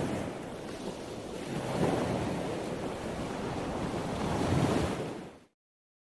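Sea surf washing onto the beach in rising and falling surges, with wind rumbling on the microphone. It fades out to silence about five seconds in.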